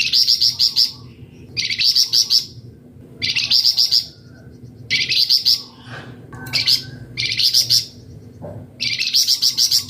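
Flamboyan songbird singing in short, fast trilled phrases of about five quick high notes each, repeated roughly every second and a half, with a faint low steady hum underneath.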